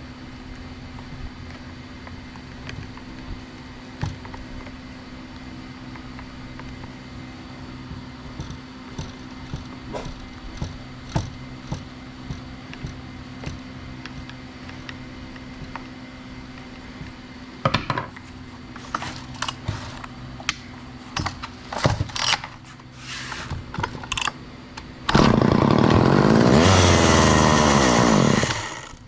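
Old aluminium-bodied two-stroke chainsaw: knocks and rattles as it is handled, then near the end it runs loud, its pitch rising and falling as it revs, for about three and a half seconds before it cuts off. A steady low hum runs underneath.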